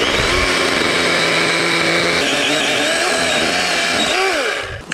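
DeWalt cordless battery chainsaw running with a steady motor whine. Near the end its pitch falls and it winds down briefly, then starts again.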